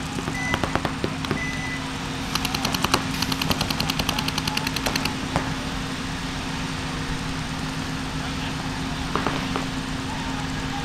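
Paintball markers firing: a few scattered shots, then a rapid, even string of many shots a second from about two seconds in to about five seconds in. A steady low hum runs underneath.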